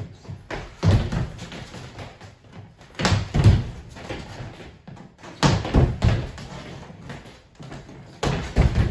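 Two people's feet thudding on a hardwood floor during fencing footwork: half step, jump and lunge, with the front foot landing hard on each lunge. There are four clusters of thuds, about two and a half seconds apart.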